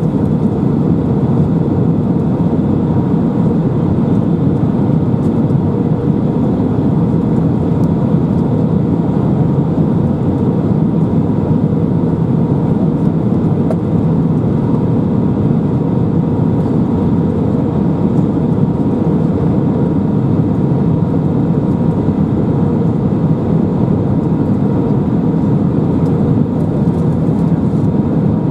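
Steady cabin noise inside a Lufthansa Airbus A319 heard from a window seat: a constant low engine and airflow drone with a faint steady whine on top.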